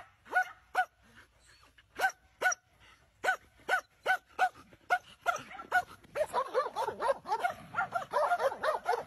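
Two dogs barking at each other in a fence fight: sharp barks in quick succession, often in pairs, building after about five seconds into a dense flurry of overlapping barks.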